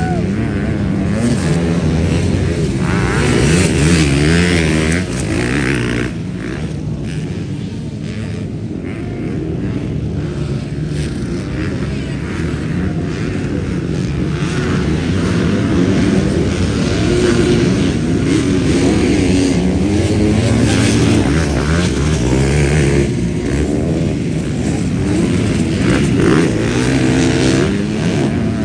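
MX2-class motocross bikes racing, their engines revving up and down over and over as the riders accelerate and shift.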